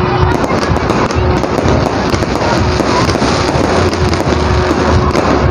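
Fireworks display: aerial shells bursting overhead one after another, with dense crackling and popping throughout.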